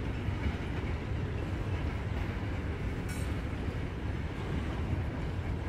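Norfolk Southern freight train rolling past, its cars and wheels on the rails making a steady low rumble, with a brief high-pitched sound about three seconds in.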